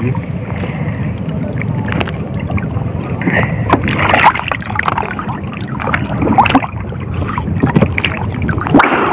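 Seawater splashing and dripping off a gill net as it is hauled up by hand in shallow water, in irregular bursts, over a steady low rumble of wind on the microphone.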